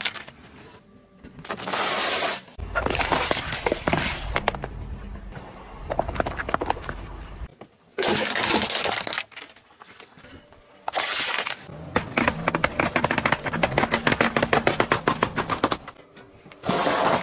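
A car tyre rolling over objects and crushing them: crackling and crunching, then a long run of rapid sharp cracks in the second half as aluminium drink cans are crumpled flat. Short loud rushing bursts fall between the clips.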